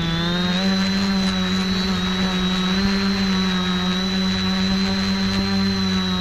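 Electric motors and propellers of an X550 quadcopter, heard close up from its onboard camera. They make a steady buzzing hum with a thin high whine above it, rising slightly in pitch in the first second and then holding level as it hovers.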